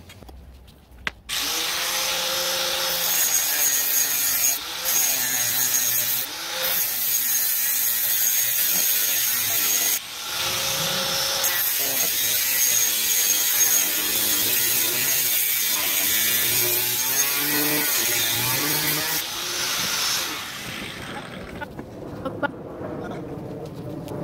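Electric angle grinder cutting into a metal bar of a go-kart frame: a loud, steady grinding with a high whine. It eases off briefly a few times and stops about twenty seconds in.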